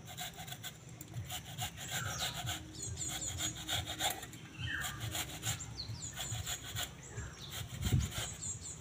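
Whole wax apples (jamrul) being grated by hand on a flat metal grater over a steel bowl: repeated wet rasping strokes of the fruit across the metal teeth. There is a dull knock near the end.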